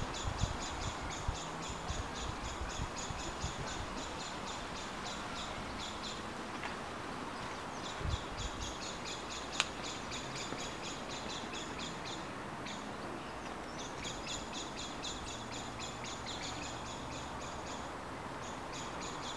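Garden ambience: a steady background hiss with long runs of rapid, high-pitched ticking notes, several a second, that stop and start again.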